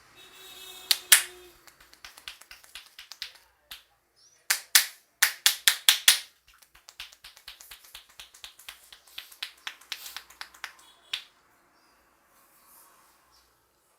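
Sharp snapping cracks and taps from a barber's hands during an Indian head massage. One loud crack comes about a second in, then a quick run of about seven loud cracks. After that comes a faster series of lighter taps, about four a second, and a last crack near the end.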